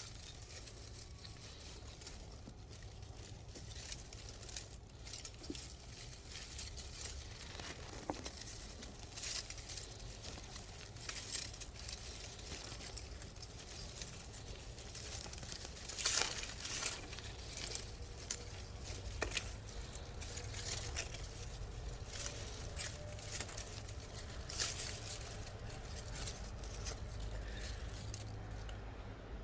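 Irregular rustling and crinkling handling noises, with small crackles coming and going throughout and a louder flurry about halfway through, over a steady low hum.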